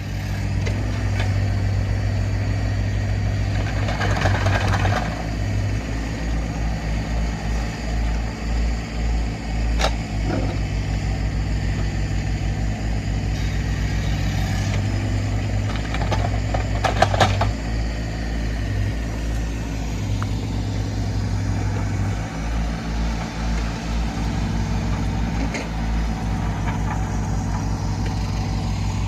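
A heavy engine running steadily with a low throb, with a few sharp knocks or clanks about four, ten and seventeen seconds in.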